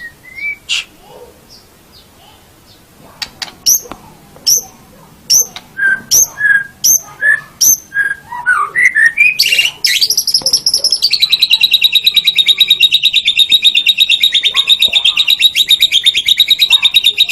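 White-rumped shama (murai batu) singing: a run of sharp, separate whistled notes and slurs, then from about ten seconds in a long, fast, even trill held for about seven seconds that stops abruptly.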